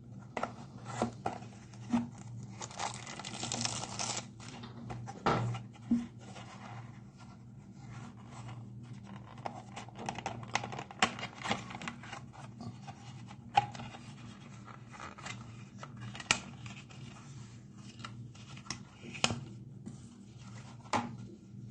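Hands opening and handling product packaging: a stretch of paper or packaging tearing and rustling about three seconds in, then scattered clicks, taps and scrapes as the box and case are handled, over a low steady hum.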